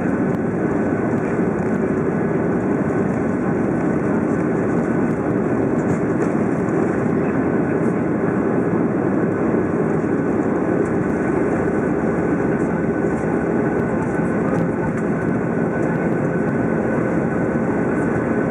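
A Boeing 737's CFM56 turbofan engines at takeoff thrust, heard inside the cabin as a loud, steady noise with a faint high whine, through the takeoff roll and liftoff.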